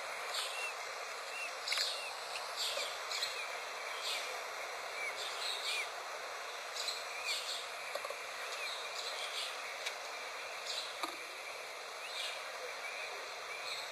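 Newly hatched peachick peeping: short, faint rising-and-falling peeps repeated about once a second over a steady hiss, with occasional soft scratchy clicks.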